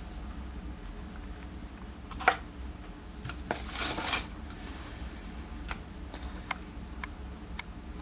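Small metal lock parts clicking and clinking as they are handled: a sharp click about two seconds in, a brief cluster of ringing clinks about four seconds in, then a few faint ticks.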